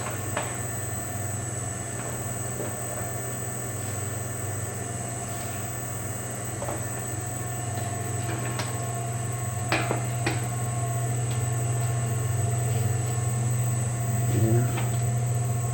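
Five-head cold-press oil expeller running while pressing black seed: a steady motor hum with a constant high whine over it, and a few sharp clicks, the loudest about ten seconds in.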